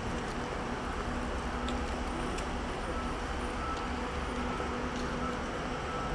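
Steady low hum of idling double-decker buses, with a few faint clicks and steps from people walking.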